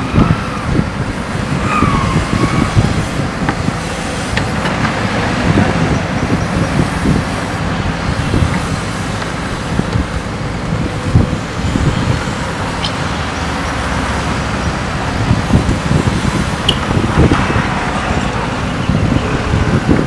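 JCB 3DX backhoe loader's diesel engine running under working load as the backhoe arm digs and lifts soil.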